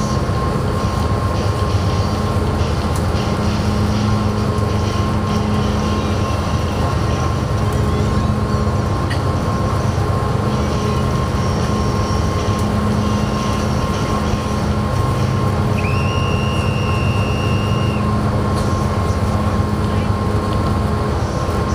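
Steady low drone of a ferry's engines heard inside the passenger cabin, with a constant thin hum above it. A brief high tone sounds for about two seconds near the end.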